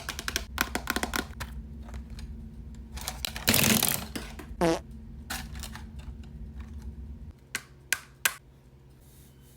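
A string of comic sound effects: a quick flurry of clicks, a loud hissing burst about three and a half seconds in, then a short tone sliding downward, followed by scattered clicks and two sharp ticks.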